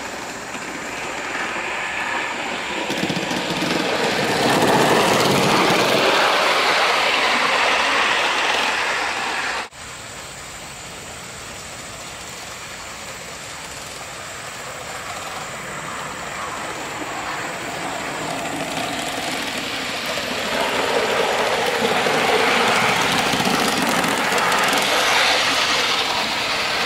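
Aster live-steam model of the Union Pacific FEF-3 4-8-4 locomotive running on its test track, its sound swelling as it draws near. This happens twice, with an abrupt drop about ten seconds in.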